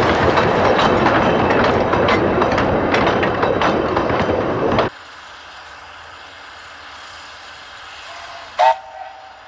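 Narrow-gauge train running, a loud rumble with rapid clicks of wheels over the rails. The noise cuts off abruptly about five seconds in, leaving a low steady background, and a short whistle toot sounds near the end.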